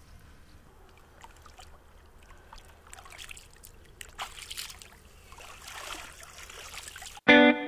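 Faint trickling water with a few soft clicks. Near the end, guitar music starts abruptly and much louder.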